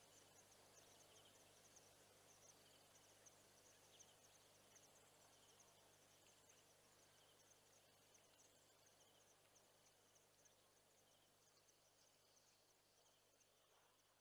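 Near silence: faint outdoor ambience with rapid, high chirping, slowly fading out.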